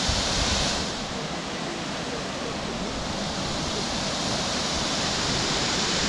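Steady rushing of Bambarakanda Falls, Sri Lanka's tallest waterfall, heard close by, with a low, uneven rumble underneath.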